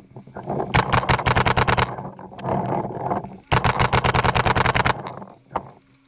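Paintball markers firing two rapid bursts of shots, about ten a second, each burst lasting a little over a second.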